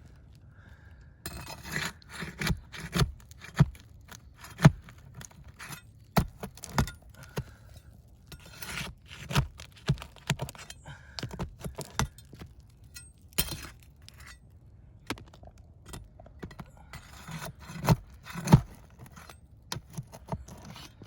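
Hand tools prying and scraping at brittle asphalt roofing shingles as they are worked loose from their nails and seal strips: many sharp clicks and knocks, with stretches of scraping now and then.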